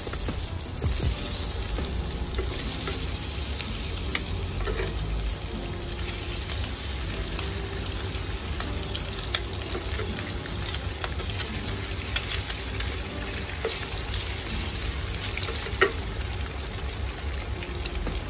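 Pork sizzling in hot oil in a frying pan while a wooden spatula stirs and scrapes it, with eggs frying in the pan too later on. The sizzle is a steady hiss, broken by a few sharp clicks.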